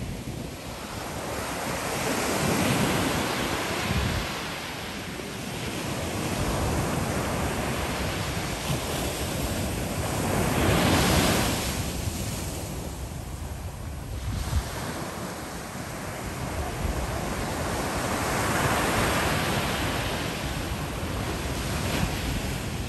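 Ocean surf breaking and washing up a sandy beach, swelling three times about eight seconds apart.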